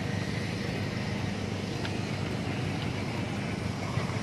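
A steady low engine drone, with a couple of faint knocks over it.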